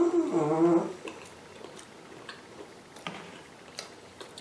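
Chewing a bite of veggie pakora close to the microphone: faint mouth clicks and smacks. It follows a short voice-like sound in the first second.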